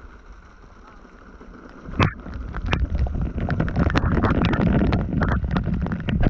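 Water splashing and churning, with irregular knocks and clatter, starting suddenly about two seconds in after a faint steady hiss.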